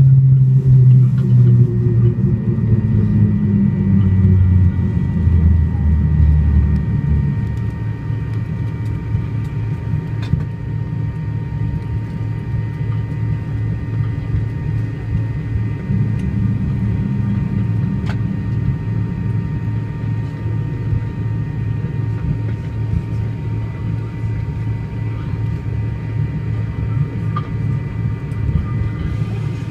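MD-80 airliner heard from the cabin during its landing roll-out: the low drone of its rear-mounted Pratt & Whitney JT8D engines falls in pitch over the first several seconds as the jet slows, then settles into a steady rumble with a thin, steady high whine.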